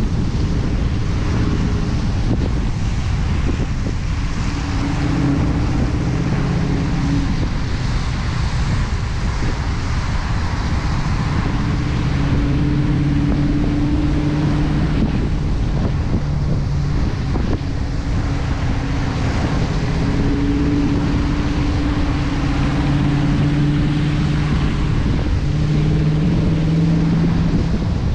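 Dodge Challenger R/T's 5.7-litre HEMI V8 running at steady cruising revs, its note shifting a little in pitch as the throttle changes. Under it is a constant hiss of tyres on a wet road, with wind noise on the outside-mounted camera's microphone.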